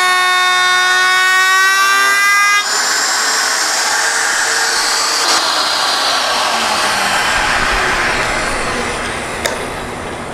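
Table-mounted router with a flush-trim bit running at full speed, a steady high whine, while the workpiece and its template are fed around the bit. The whine stops abruptly about two and a half seconds in, leaving a rushing hiss with a falling hum that slowly fades as the motor winds down, and a sharp click near the end.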